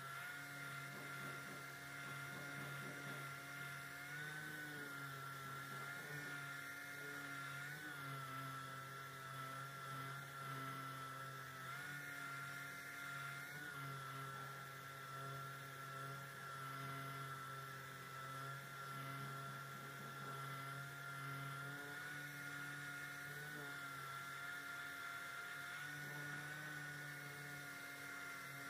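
Random orbital sander with a dust-extraction hose running steadily as it sands body filler on a car panel. It gives a continuous whine whose pitch wavers slightly as it is pressed and moved over the surface.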